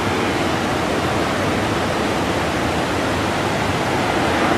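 Heavy ocean surf breaking against a boulder beach: a steady, unbroken rush of crashing waves.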